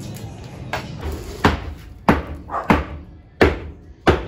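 A run of about six sharp knocks and bangs, roughly one every two-thirds of a second, from work on kitchen cabinetry being taken apart.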